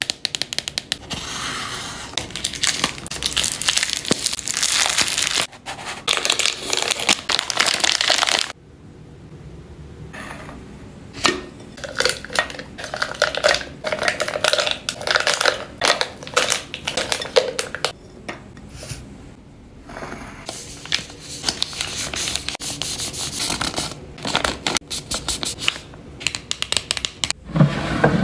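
Packaging crinkling and rustling as wrapped items are handled and dropped into a glass cup and clear plastic bins, with light taps and clicks of items and containers. It comes in several separate stretches with abrupt breaks between them.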